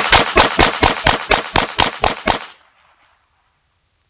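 CZ83 pistol in .380 ACP firing rapid fire, a fast string of about ten shots at roughly four a second through its 13-round magazine, ending about two and a half seconds in.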